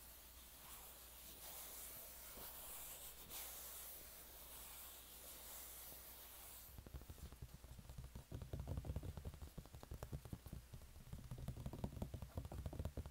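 Hand rubbing across the flat surface of a drawing board with a soft hiss. About seven seconds in it changes to rapid fingertip tapping on the board, louder, with dull low knocks.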